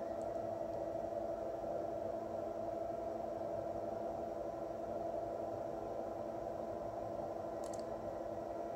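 Steady low hum made of a few fixed tones, with a single faint tick near the end.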